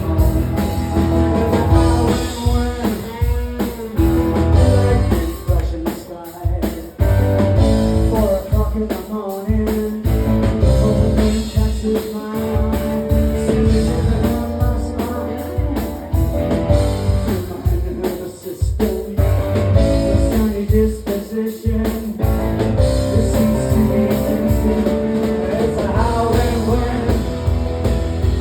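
Rock band playing an instrumental break of a blues-rock song, with guitar and drum kit.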